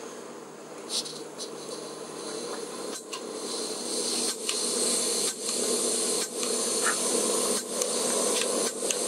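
Jetboil backpacking stove being lit: butane gas hissing from the burner, growing louder about three and a half seconds in as the valve opens, with sharp clicks of the push-button igniter roughly once a second.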